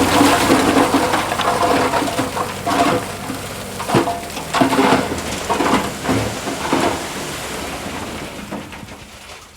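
Loose stone and soil sliding and pouring in a rushing hiss, with stones clattering irregularly, tapering off near the end.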